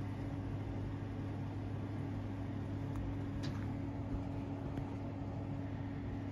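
Steady low mechanical hum, with a few faint light ticks about halfway through.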